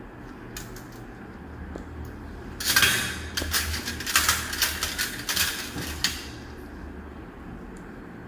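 Metal surgical instruments clinking and rattling in a dense clatter for about three seconds, starting a little over two and a half seconds in, over a steady low hum.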